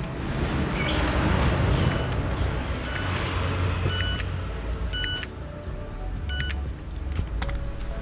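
LG direct-drive washing machine control panel beeping, short sharp electronic beeps about once a second, over a steady rumbling noise. The machine is switching itself off and on, a fault the owner traces to its power-supply board.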